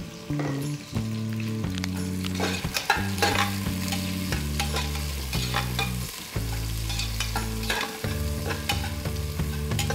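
Sliced onions sizzling in hot ghee and oil in an aluminium pressure cooker while a spatula stirs them, scraping against the pot again and again.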